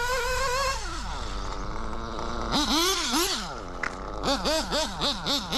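Alpha .21 five-port nitro engine in an RC buggy, revving up and down as the car drives. There is one long rise and fall in the first second, two throttle blips near three seconds, then about five quick blips near the end. To the driver's ear it runs a bit rich on the high-speed needle.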